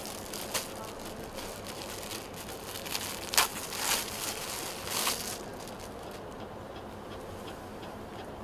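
Rustling and crinkling of suit cloth and its wrapping being handled and unfolded, with a few sharp crackles in the middle, the loudest about three and a half seconds in, over steady room noise.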